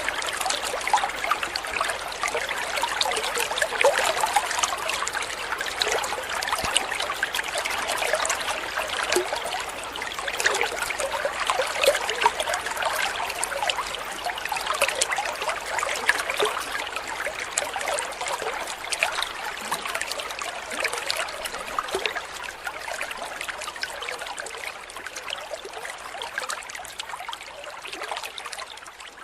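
Water trickling and babbling like a small stream, steady, easing slightly toward the end.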